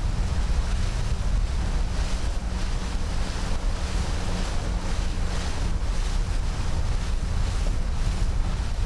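Wind rushing and buffeting on the microphone, with the steady rush of a small launch moving over the water.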